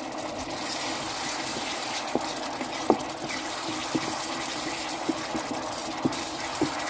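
Thick Thai chili sauce simmering with a steady hissing bubble in an electric cooking pot while a wooden spatula stirs it, with a few light knocks of the spatula against the pot.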